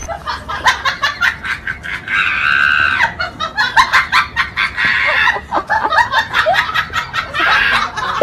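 People laughing hard, in quick repeated bursts of laughter.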